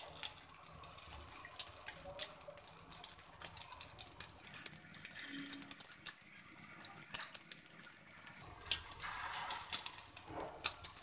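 Egg-coated beef shami kebab patties shallow-frying in hot oil on a flat iron tawa: a steady sizzle with scattered crackles and pops, louder for a moment near the end.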